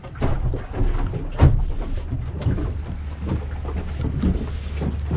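Low steady drone of the fishing boat's engine with wind noise on the microphone, and a sharp knock about a second and a half in.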